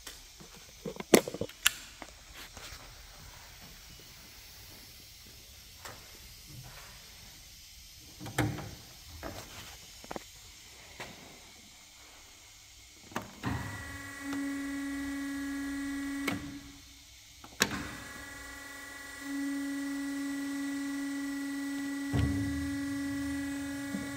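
Bomar automatic metal-cutting bandsaw being switched on at its control panel: a few clicks and knocks of the key switch and controls, then about halfway through its motor starts and runs with a steady whining hum. The hum stops briefly with a sharp click and starts again, running on with a low thump near the end.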